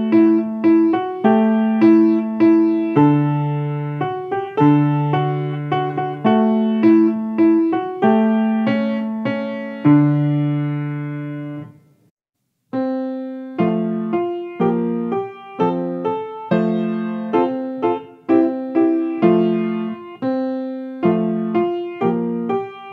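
A grand piano playing. About ten seconds in, a held chord fades and the music stops for a moment; then a new piece starts with quicker, shorter notes.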